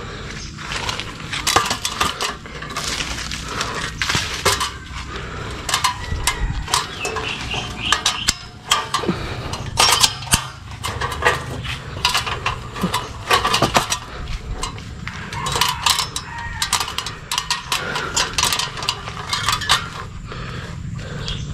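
Rapid, irregular clinks and clicks of hard objects, several a second.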